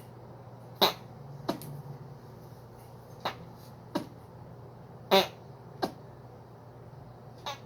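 A string of short, sharp fake fart sounds made by a person, about seven in all at uneven gaps, the loudest about a second in and about five seconds in.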